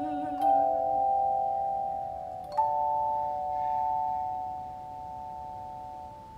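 Handheld chime bars struck with mallets, twice, about half a second and two and a half seconds in, several clear bell-like pitches ringing together and slowly fading. A woman's sung note tails off in the first second.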